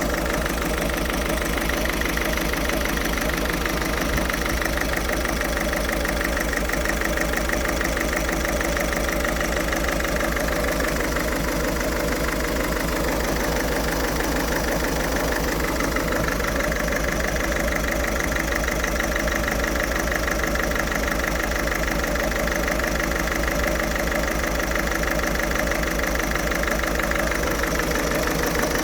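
Ford Fiesta 1.6 TDCi four-cylinder turbodiesel idling steadily with an even, rapid clatter and no revving. It is a rough idle, the fault the owner is checking after work on the car.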